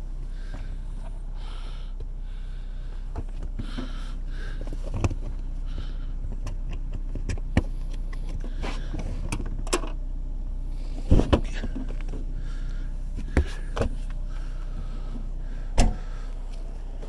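A steady low hum with a scattering of short knocks and clicks from handling around the car's cargo area, the loudest a pair of thumps about eleven seconds in.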